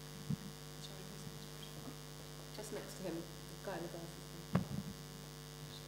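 Steady electrical mains hum, with faint voices in the room and two soft knocks, about a third of a second in and near the end.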